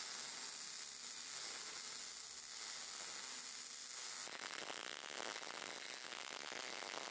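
Short-circuit MIG welding arc sizzling as a fillet weld is run on quarter-inch steel plate with .030-inch ER70S-6 wire at 19 volts. About four seconds in, the sound changes suddenly to a closer, crisper crackle of rapid fine clicks.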